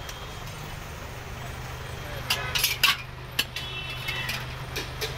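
Metal slotted ladle clinking against a large wok (karahi) of frying oil: a quick cluster of sharp clinks a little before halfway, then a few more, some ringing briefly, over a steady low hum.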